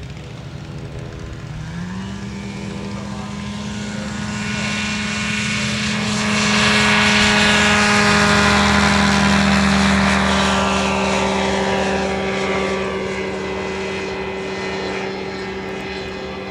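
Single-seat Mini-Max ultralight's engine and propeller: the engine revs up about two seconds in for the takeoff run, is loudest as the plane passes close in the middle, then holds a steady pitch as it climbs away.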